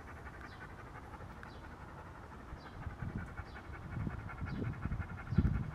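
A dog panting, the puffs growing louder in the second half, with faint short falling chirps about once a second behind it.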